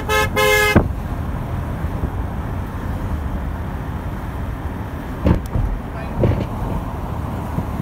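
Two short honks of a vehicle horn, then the steady low rumble of passing convoy traffic: cars and pickup trucks driving on the highway.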